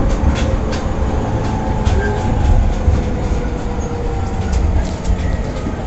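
Running sound of a JR East E231-500 series electric commuter train between stations: a steady rumble of wheels on rail with scattered sharp clicks and faint steady tones.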